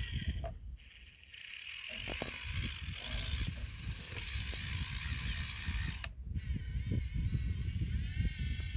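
Kabolite 336GC scale RC hydraulic excavator working: a steady mechanical whine from its pump and drive, with crackling and scraping as the bucket digs into soil. The sound dips for about a second near the start, then picks up again.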